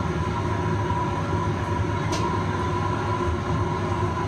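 Steady roar of a commercial noodle kitchen: the exhaust hood and a large pot of boiling noodle water, with a steady hum running through it. A light metallic clink about two seconds in.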